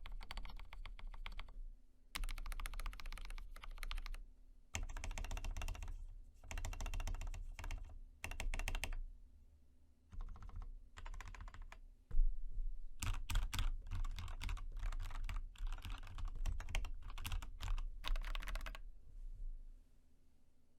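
Fast typing on an Epomaker EP84 mechanical keyboard with lubed and filmed Gateron Black linear switches and lubed Durock plate-mount stabilizers: runs of rapid keystrokes broken by short pauses, stopping shortly before the end.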